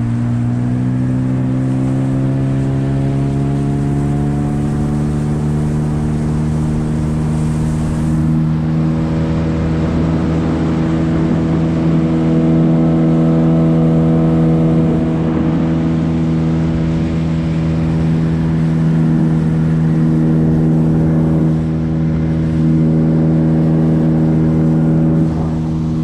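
Gladiator 9.9 hp outboard motor running; its pitch rises over the first several seconds as it speeds up, then holds steady at speed.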